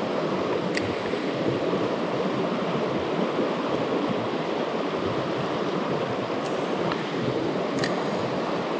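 Mountain river rushing over rocks and shallow rapids, a steady even noise, with a few faint clicks scattered through it.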